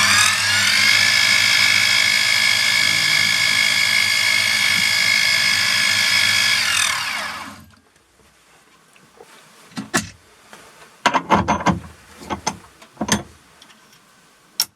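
Mini milling machine's spindle motor whining at a steady high speed while drilling small rivet holes. It spins down in a falling whine about seven seconds in. A few sharp clicks and knocks of handling follow.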